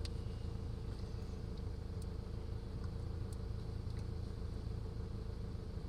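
An engine running steadily, a low even drone with a few faint ticks over it.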